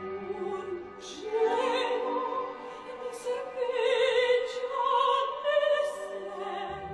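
Background music: sustained instrumental chords, joined about a second in by a high singing voice with vibrato.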